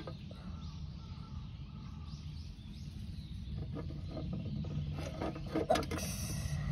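A clear plastic insect cage being handled: a scatter of soft plastic clicks and rattles from its lid and sides from about three and a half seconds in, the loudest just before the end, then a short scraping of plastic, over steady low background noise.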